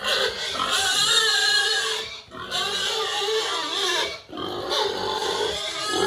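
Pigs giving loud, high-pitched, wavering calls, in three long stretches broken by short pauses about two and four seconds in.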